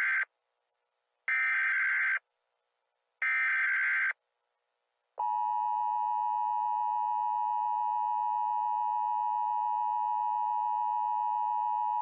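Emergency Alert System SAME header: the end of the first burst and two more short, screechy data bursts about a second apart, then from about five seconds in the steady EAS attention tone, held at an even level. This is the signal that announces an emergency alert message is about to follow.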